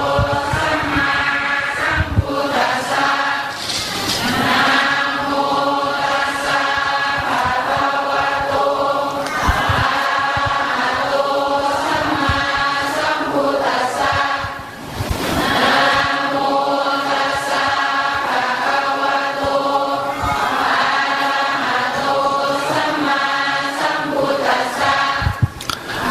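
A group of voices chanting Buddhist Pali verses together in long, drawn-out phrases, with short breaks for breath every few seconds.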